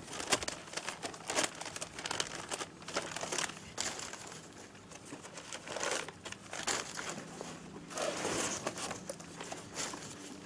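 Newspaper packing and a cardboard box crinkling and rustling as the wrapping is pulled off metal ladles, in a steady run of irregular crackles.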